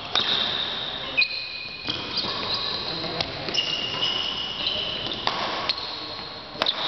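Badminton shoes squeaking on a synthetic court mat, high held squeaks one after another as the players lunge and recover, with several sharp clicks of rackets striking the shuttlecock.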